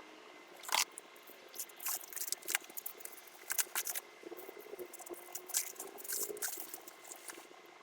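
Packaging and parts being handled: an irregular run of crinkles, clicks and light knocks.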